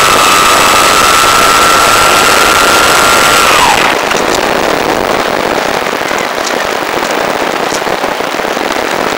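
Onboard sound of an Easy Glider RC plane in flight: the electric motor and propeller give a steady high whine over a loud rush of air. About four seconds in the whine slides down in pitch and fades out, leaving the air rush with a few faint clicks.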